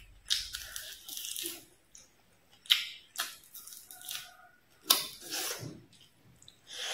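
Close-up eating of fried fish: a string of short, sharp crunches as the fish is bitten and torn from the bone, with chewing in between.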